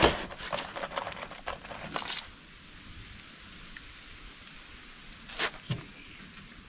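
A box of deck screws set down on a plywood sheet with a sharp knock, then the screws clinking and rattling for about two seconds as they are picked through. Two short knocks on the wood come a little over five seconds in.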